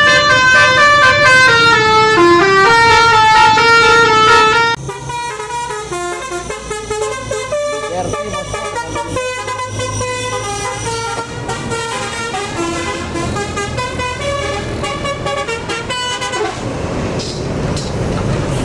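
Tour bus's telolet basuri musical horn playing a fast tune of stepping notes. The tune is loud for the first five seconds, then drops in level and plays on. The notes stop a couple of seconds before the end, leaving steady vehicle noise.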